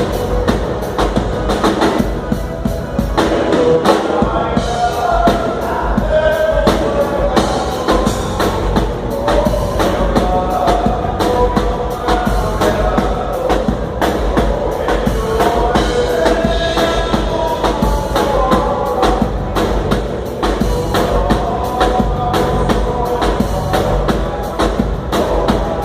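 Live dance band playing, with a drum kit keeping a steady, fast beat and a melody line coming in over it a few seconds in.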